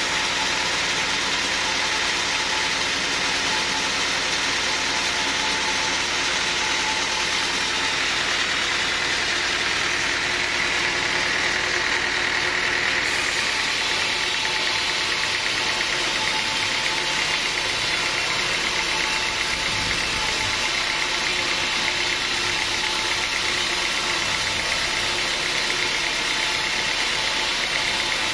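Sawmill machinery running steadily: a loud, continuous mechanical noise with a strong hiss and a low hum. The hiss brightens for a few seconds about halfway through.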